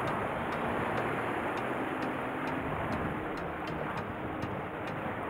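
Steady wind and sea noise on the microphone, with a faint ticking about two to three times a second.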